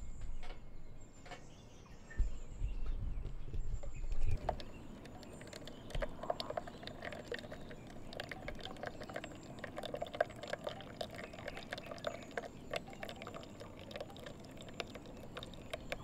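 Hot water poured in a thin stream from a small steel pot onto a drip-bag coffee filter in a plastic cup, trickling and splashing steadily from about four seconds in. A few low rumbles and knocks come before the pour starts.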